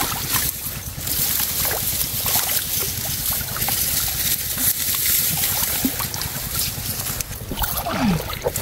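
Water sloshing and trickling as a gill net is hauled in by hand through a canal, with wind rumbling on the microphone.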